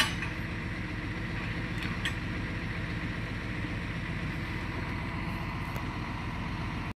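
Engine of a crane truck idling steadily, with a faint knock about two seconds in.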